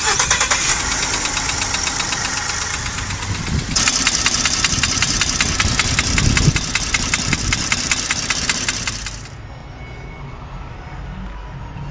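Gasoline car engines running with a rapid, even knock, heard in clips that cut abruptly about 4 and 9 seconds in. Up to the second cut the knock comes from the lower right side of the engine block. After it a quieter engine knocks from the top of the engine, the kind of knock that makes the engine stall.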